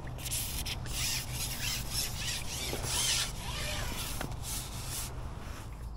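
Carbon fishing pole being shipped back and handled in sections, scraping and rubbing in irregular scratchy strokes, with a short squeak about halfway.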